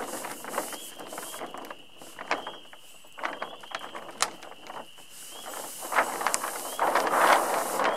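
Stiff monofilm windsurf sail crackling and rustling as it is handled and dragged over gravel, with scattered sharp clicks. The crackle grows denser near the end. A steady high tone runs underneath.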